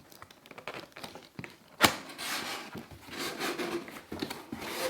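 A cardboard delivery box being opened by hand: light clicks and taps, a sharp snap about two seconds in, then rustling of the packaging.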